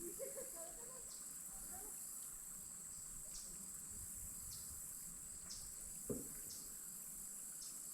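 Faint, steady high-pitched insect chorus, typical of crickets, with a soft tick about once a second and a single knock about six seconds in.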